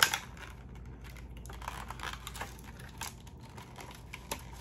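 Product packaging crinkling as it is handled, with scattered clicks and a sharp click at the start.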